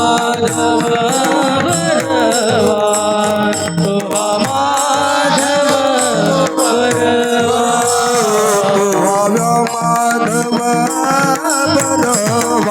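Marathi devotional bhajan: a voice singing a drawn-out melodic line over a steady held accompaniment, with rhythmic hand percussion throughout.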